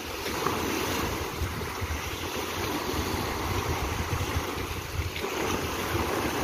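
Small waves breaking and washing up the shore, with wind buffeting the microphone in gusts.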